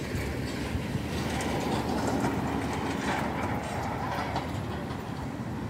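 Road traffic passing close by: vehicle engine and tyre noise that swells about a second in and eases off near the end.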